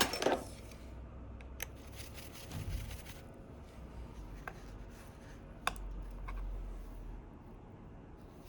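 Small hand tools handled on a workbench: a few scattered light clicks and taps with some soft rubbing and rustling.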